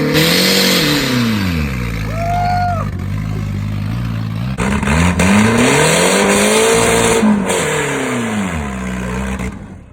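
Turbocharged Nissan SR20 four-cylinder engine revving hard twice, its pitch climbing and falling back each time, with a brief high squeal about two seconds in. The sound fades out near the end.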